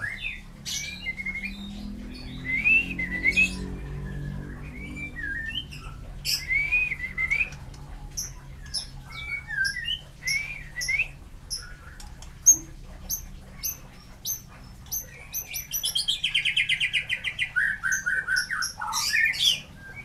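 Male white-rumped shama singing: varied whistled phrases mixed with sharp high chips, and near the end a fast run of repeated notes that drops in pitch.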